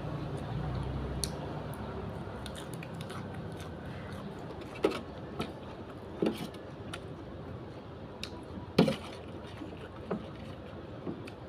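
Eating noodle soup: scattered wet smacks and chewing sounds with sharp clicks, about six louder ones spread through the second half. A low rumble fades out in the first second or so.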